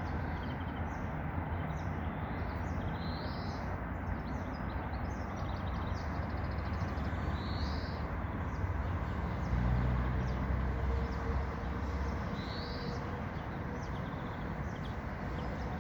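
Small songbirds chirping and singing in short phrases over a steady low rumble, which swells for a couple of seconds about two-thirds of the way in.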